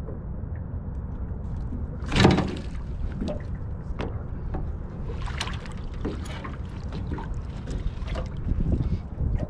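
Wind rumbling on the microphone in a small fishing boat while a hooked fish is brought alongside. A loud sudden splash comes about two seconds in, followed by several smaller knocks and splashes.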